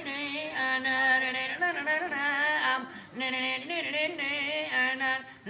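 An elderly man singing a Turkish folk lament unaccompanied, holding long notes and breaking into wavering, ornamented runs twice, with no clear words.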